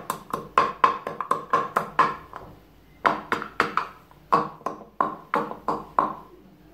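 Wooden pestle pounding allspice (pimento) seeds in a wooden mortar: rapid knocks, about four a second, each with a short woody ring. The pounding pauses for about half a second roughly halfway through.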